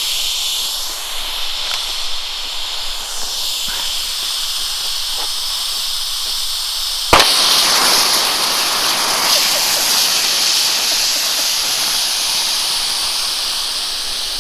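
A single lever-action rifle shot about seven seconds in, followed by a loud, steady hiss of propane rushing out of the punctured tank. A fainter hiss is already there before the shot.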